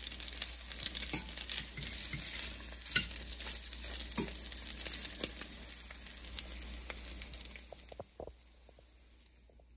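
Egg-dipped bread slices frying in hot oil in a stainless steel pan, sizzling steadily, with a metal fork clicking and scraping against the pan as the pieces are turned. The sizzle fades out near the end.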